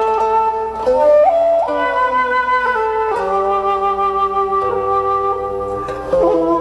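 Slow instrumental music led by a flute, holding long notes over sustained lower tones, with a few notes that slide up in pitch.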